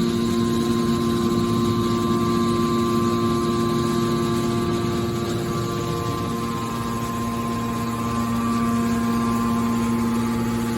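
Hydraulic scrap-metal baler running: a steady mechanical hum with several held tones.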